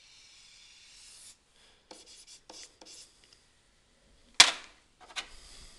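A stylus scratching across a drawing tablet: one long stroke, then several short strokes and taps while letters are written. One sharp tap about four and a half seconds in is the loudest sound.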